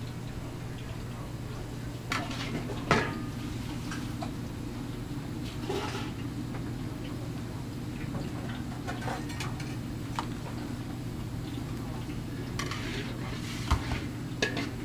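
Dishes and kitchen utensils clinking and knocking now and then over a steady low hum. The sharpest knocks come about three seconds in and near the end.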